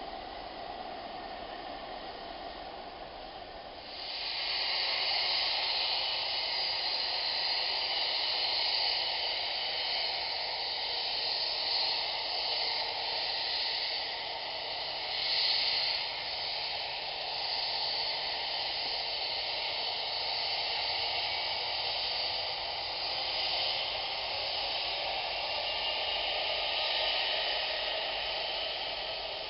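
Jet airliner's engines running across the airfield: a steady, hissing jet noise that gets suddenly louder about four seconds in and then holds fairly steady.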